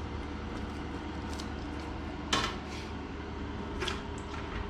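Dishes being handled: a few scattered light knocks, the loudest about two seconds in, over a steady low hum.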